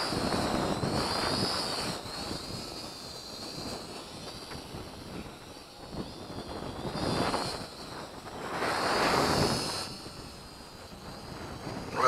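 Holy Stone HS110D quadcopter's propellers whining high, the pitch wavering as it holds a hover in strong wind. Gusts of wind on the microphone swell at the start, about seven seconds in and again about nine seconds in.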